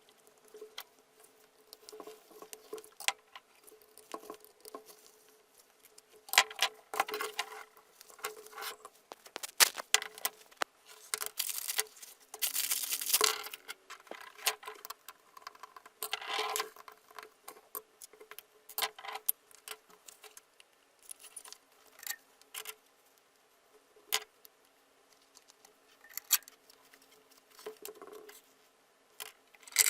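Irregular clicks, light rattles and short scrapes of small hard parts being handled, as an old hammer drill is worked on by hand. The noises are busiest from about six to seventeen seconds in, with a longer scrape just after twelve seconds.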